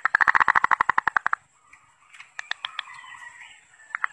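Zebra dove (perkutut) song: a fast run of short cooing notes, about a dozen a second, lasting over a second. A few sharp clicks follow midway, and the next run of coos starts near the end.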